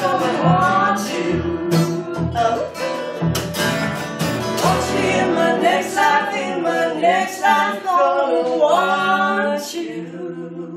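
Closing bars of a live folk song: a woman singing with steady acoustic guitar strumming and cello. The strumming stops about halfway through, and the last held notes die away near the end.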